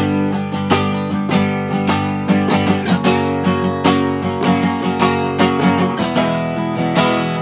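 Gibson acoustic guitar strummed in a steady rhythm of chords, a few strokes a second, the chords ringing between strokes.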